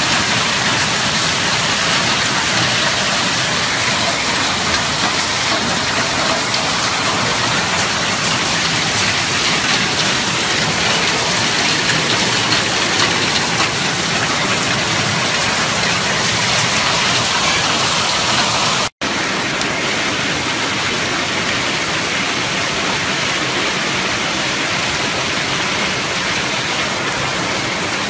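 Heavy hailstorm: hail and rain pelting down on pavement and rooftops in a dense, steady hiss. The sound drops out for an instant about two-thirds of the way through.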